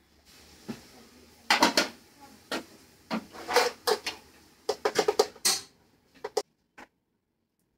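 Plastic hair clips and combs clattering and clicking as a hand rummages through a plastic tray of them, an uneven run of sharp rattles that stops abruptly near the end.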